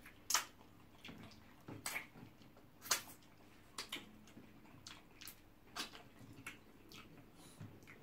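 Close-up wet eating sounds of hand-eaten soup and pounded yam: squelchy lip smacks, slurps and finger-sucking. They come as short, sharp smacks, irregular, roughly every half second.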